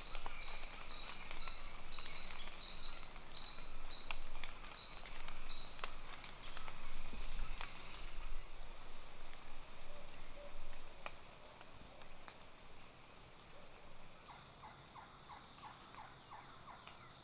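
Insect chorus of crickets and katydids in summer woodland: a steady high-pitched buzzing, with a chirp pulsing about twice a second for the first half. Near the end the buzz shifts to a slightly lower, stronger pitch.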